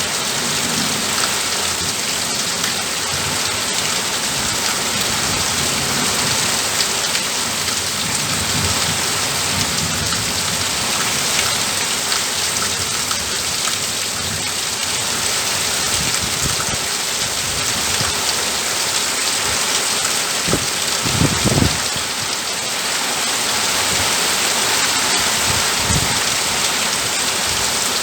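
Steady rain falling on the roof of an upper floor, a dense even patter. A few low thumps come about three-quarters of the way through.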